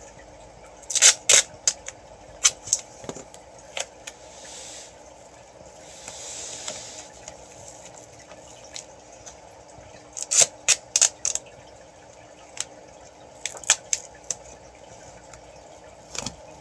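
Duct tape being pulled off the roll and pressed down onto a plastic tote: sharp crackles and snaps in quick runs about a second in, around ten seconds and again near fourteen seconds, with two softer rasps of tape unrolling between them.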